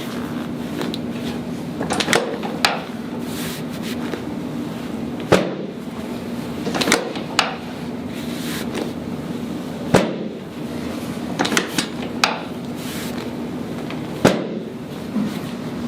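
Sharp knocks and clunks from chiropractic adjusting on a treatment table, about eight of them, a second or more apart, over a steady low hum.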